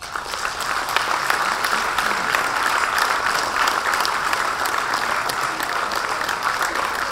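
Audience applauding, the clapping breaking out suddenly and holding steady.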